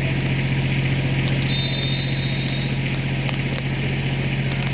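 Steady low mechanical hum, like a running engine, unchanging throughout. A faint thin high tone sounds for about a second, about one and a half seconds in.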